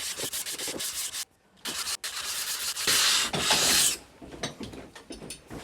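Cast-iron sole of a vintage No. 3 hand plane being lapped flat on abrasive, rubbed back and forth in long scraping strokes. There is a short break about a second in, and the strokes stop about four seconds in, leaving only faint clicks and knocks.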